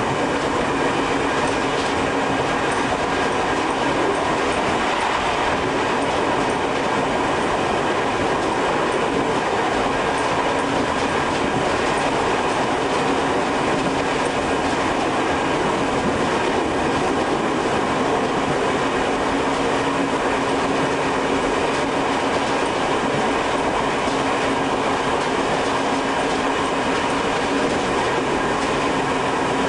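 Tobu 5700-series electric train running at steady speed, heard from the driver's cab: a continuous even running noise with a couple of held tones.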